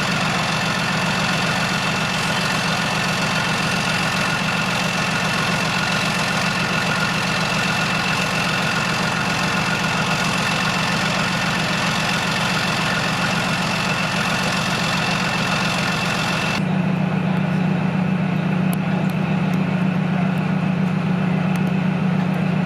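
Heavy vehicle engine running steadily at idle, with a steady high whine over it. About three-quarters of the way through the sound changes abruptly to a deeper engine note with less hiss.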